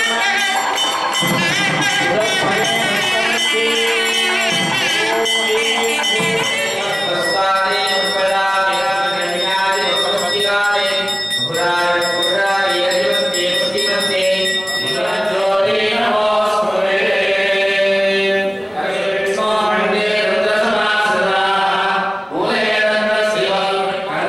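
Hindu devotional singing: voices in a chant-like melody with musical accompaniment.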